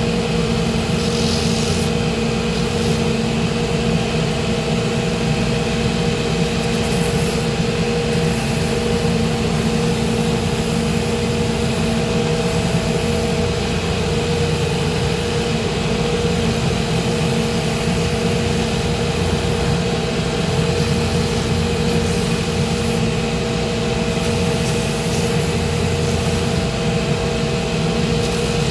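Shoe finishing machine running steadily with a constant hum, a hiss above it coming and going as the crepe-soled orthopedic lift is sanded down on it.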